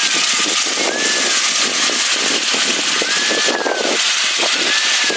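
Spiced onion-tomato masala sizzling in a large cooking pot, with irregular scraping strokes as curd is stirred in.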